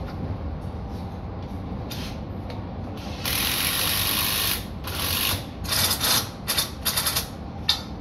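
Handheld power tool worked overhead into window framing. It runs in a brief burst, then a sustained run of about a second and a half, then a string of short bursts in quick succession, over a steady low rumble.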